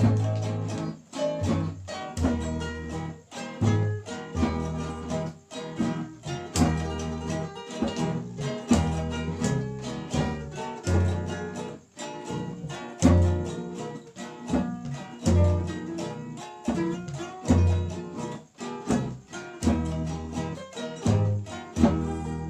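Papuan string band music: acoustic guitar and ukuleles strummed in a quick steady rhythm over the deep plucked notes of a homemade wooden box bass.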